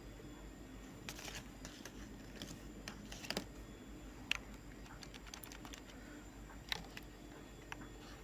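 Faint, scattered keystrokes on a computer keyboard, a few irregular taps with a sharper click about four seconds in.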